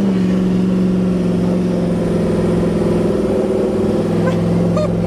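Pontiac GTO's V8 running under way at a steady, fairly high engine speed, heard from inside the cabin. Its note dips slightly just after the start, then holds steady.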